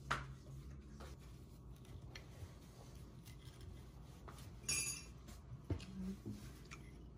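Metal fork clicking and scraping on a plate while cutting waffles: a few faint, scattered clicks and one brief, louder scrape a little past the middle.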